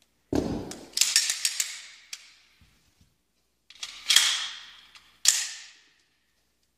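Metallic clicks and clacks of a semi-automatic pistol being handled and reloaded: a dull knock, then a quick run of clicks, a magazine being seated about four seconds in, and a single sharp clack near the end.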